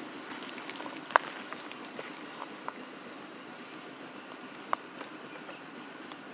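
Steady outdoor background noise with a few short, sharp clicks, the loudest about a second in and another just before five seconds.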